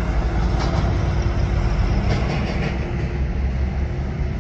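Bus engine running with a steady low rumble, the sound of heavy traffic at a bus stand.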